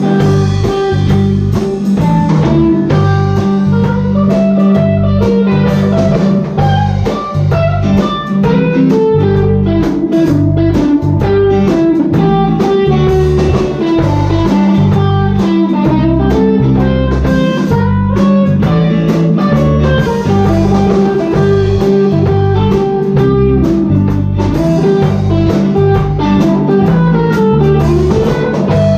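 Instrumental break of a bluesy country song: a guitar plays a lead line over steady bass and drums.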